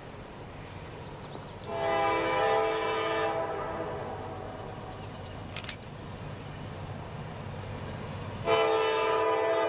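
Diesel freight locomotive's air horn sounding two long blasts, one starting about two seconds in and lasting about two seconds, the other starting near the end, over the steady low rumble of the approaching train.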